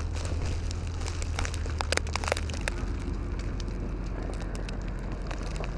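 Blizzard wind rumbling on the microphone under a scatter of sharp ticks and crackles from wind-driven snow, thickest in the first half.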